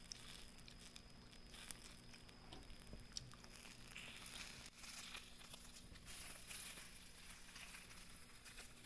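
Faint crackle of takoyaki batter cooking in a hot takoyaki pan, with a few light clicks as the balls are turned with picks, over a low steady hum.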